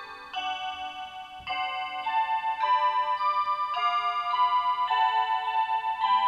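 Program timer's built-in electronic chime playing a melody: simple synthesized notes held and changing every half second to a second, with a fast pulsing ripple in the tone.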